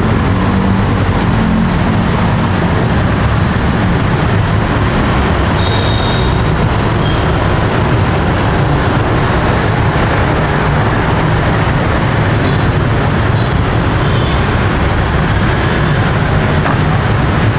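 Steady, loud noise of busy street traffic, vehicles running past continuously.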